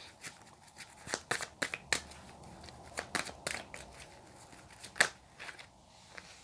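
A deck of tarot cards being shuffled by hand: quick runs of card flicks and snaps, bunched about a second in and about three seconds in, with one sharp snap about five seconds in.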